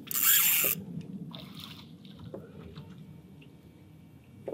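A hooked snook splashing at the surface: one short, loud splash lasting about half a second, followed by faint water sounds.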